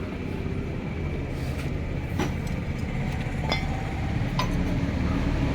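Royal Enfield Classic 350 single-cylinder engine running, with a few irregular sharp metallic clicks over its steady hum: the engine noise that comes and goes, which the mechanic traces to a worn bearing.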